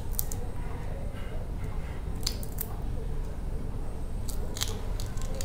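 Lychee shells being cracked and peeled apart by hand: a few short crackling clicks, in small clusters, over a steady low hum.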